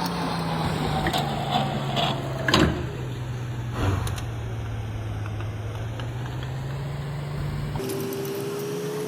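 CNC lathe taking a pass on a thread: the spindle drive's hum slowly falls in pitch, with a few sharp clicks and a louder knock about two and a half seconds in. Near the end the hum switches abruptly to a higher tone that slowly rises.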